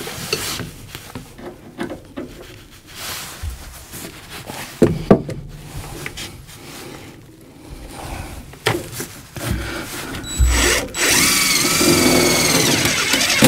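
Cordless drill driving a screw: handling clicks and a couple of sharp knocks, then near the end a few seconds of motor whine that rises and falls in pitch as the screw goes in.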